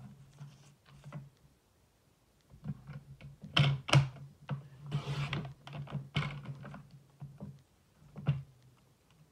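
Paper trimmer being worked to trim the edges of a card: a run of plastic clicks and knocks, loudest about three and a half to four seconds in, as the card is positioned and the cutting head is slid along the rail, with a brief scraping sound about five seconds in.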